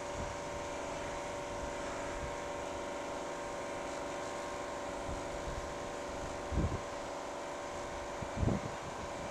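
Steady outdoor background hum and hiss, with a few faint steady tones, and wind buffeting the microphone twice in the second half.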